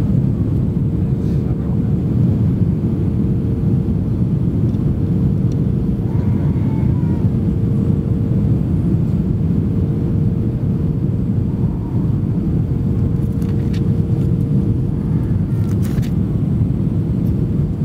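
Steady cabin noise of an Airbus A320 in flight: a deep, even rumble of airflow and engines with a steady mid-pitched hum running through it.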